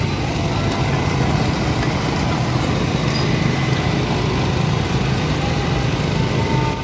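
Steady machine hum of a running motor, with a constant low drone and a thin steady whine above it, against general street-stall bustle.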